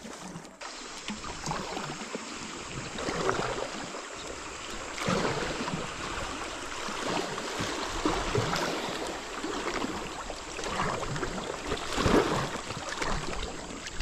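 River water rushing and splashing around an inflatable kayak in shallow current, with louder splashes every second or two.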